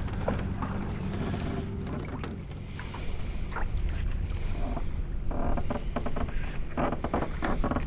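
Northern pike being played at the side of a small aluminium fishing boat: a steady low hum from the boat runs underneath, and in the last few seconds there are splashes and knocks as the fish comes to the net.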